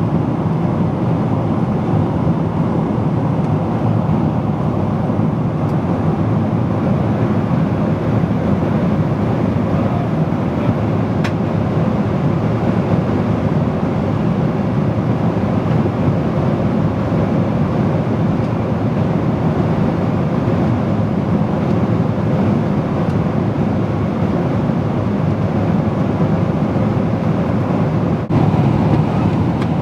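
Steady jet airliner cabin noise: the engines and the rush of air past the fuselage, heard from inside the cabin, with a faint tick about eleven seconds in.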